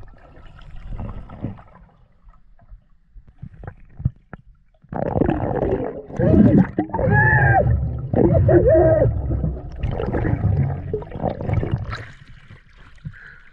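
Sounds recorded underwater: muffled gurgling and water movement, then, from about five seconds in, loud muffled voice-like tones that rise and fall over a low rumble. They fade near the end.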